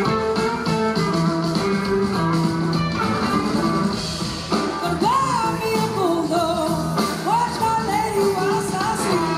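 Live blues-rock band playing: electric guitars over bass and drums. About halfway through, a lead line starts bending up and down in pitch, and it does so again a couple of seconds later.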